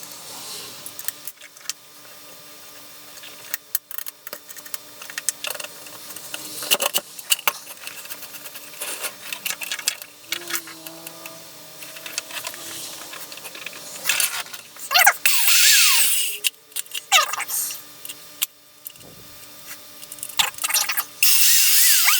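Clicks, rattles and scrapes of tools and metal parts being handled on a workbench, with two short louder bursts of noise about 15 and 21 seconds in.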